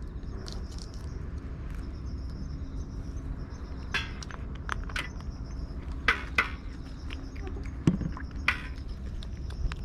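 A cat eating from a dish: scattered sharp clicks and crunches, several between about four and ten seconds in. Behind them are a steady low rumble and an insect chirping in pulses.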